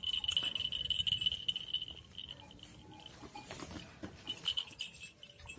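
A small metal bell on a livestock guardian dog's spiked collar jingling in a fast, shaking rattle as the dog moves its head under a petting hand; the jingling stops about two seconds in and returns briefly near the end.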